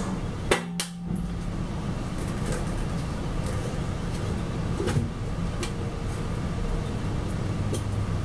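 Hands fitting and tightening a metal mounting bracket and its screws inside a resin 3D printer: a couple of sharp clicks about half a second in, another about five seconds in, and a few faint ticks of metal parts handled, over a steady low hum.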